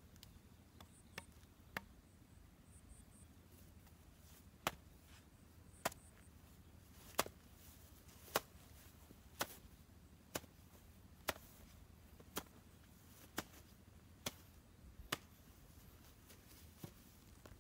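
Hoe with a metal blade chopping into grassy turf and soil: a series of sharp strikes about once a second, with two lighter ones in the first two seconds.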